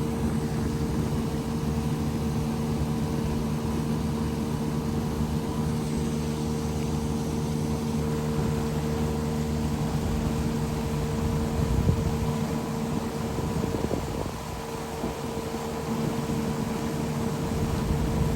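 Boat motor running at a steady speed, a constant hum that dips slightly about two-thirds of the way through.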